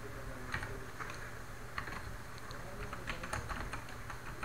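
Computer keyboard keys pressed one at a time: faint, slow, irregular keystrokes with gaps between them.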